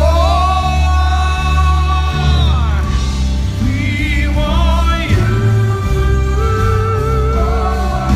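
A band playing a song while a singer holds long notes with vibrato over a moving bass line.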